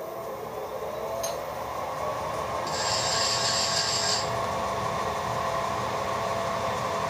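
Milling machine running with a steady hum that builds over the first few seconds. About three seconds in there is a scraping, rasping sound for about a second and a half as the machine vise is worked with its handle.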